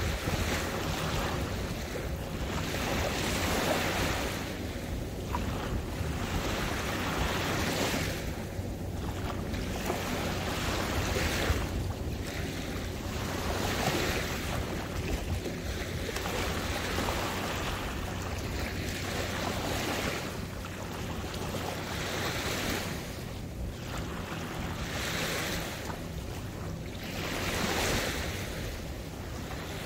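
Small waves of open saltwater lapping, the wash swelling and easing every two seconds or so, with wind rumbling on the microphone.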